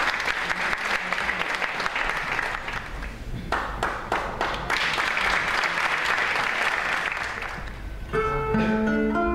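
Audience applauding. About eight seconds in, the applause gives way to a kanun (Turkish plucked zither) beginning to play, its plucked notes ringing and sustaining.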